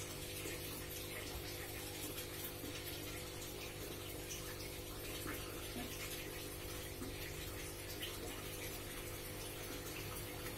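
Steady running, splashing water over a constant mechanical hum, the sound of an aquarium's water pump and filter running.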